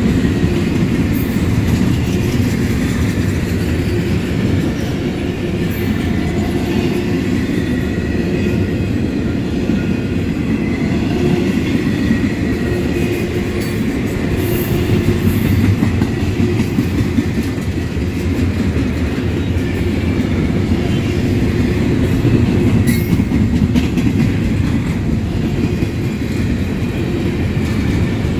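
Double-stack intermodal freight train rolling past: a steady, loud rumble of the loaded well cars on the rails, with clickety-clack of wheels over rail joints, a few sharp clicks and faint wheel squeal.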